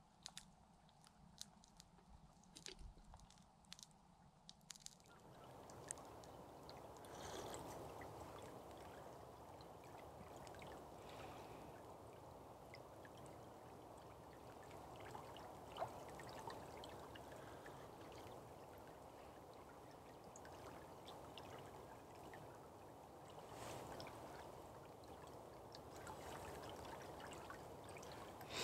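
Faint, steady running water of a small river, which comes in about five seconds in after a few soft clicks.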